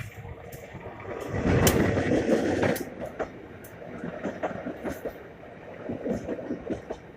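A train running by: a rumble that swells about a second in and eases off a couple of seconds later, with many short sharp clicks and knocks throughout.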